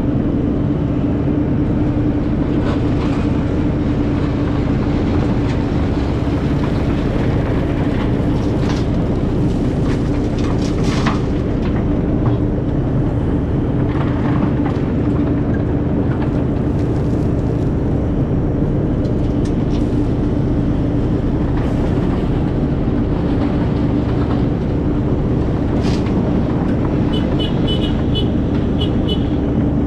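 Heavy equipment engine running steadily at an even speed, with a strong constant hum and a few faint knocks and clatters.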